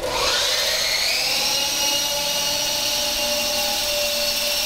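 Radio-controlled T-Series T-23 toy helicopter's motor and rotors starting up: a whine that starts suddenly and rises in pitch over about the first second as the helicopter lifts off, then holds steady while it hovers.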